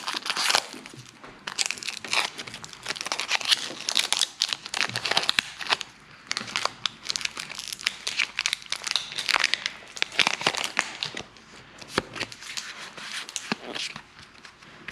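Foil wrapper of a Pokémon booster pack crinkling and tearing as it is worked open by hand, in irregular bursts of crackling.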